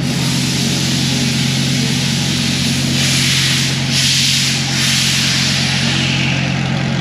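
A steady, unbroken mechanical hum from running machinery. A rushing hiss swells over it in the middle and then fades.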